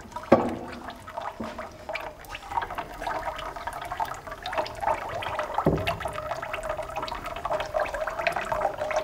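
Olive oil and vegetation water squeezed from a press's stacked baskets of crushed olives, running off in a steady trickling stream and splashing into a tub. A couple of dull knocks come about half a second in and a little past the middle.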